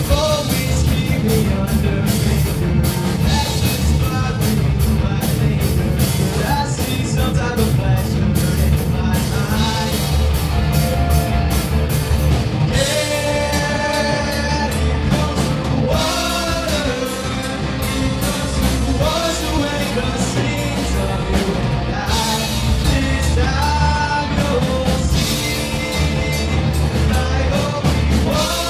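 Rock band playing live: electric guitars and drum kit, with a singer's voice over the top through the middle and later part.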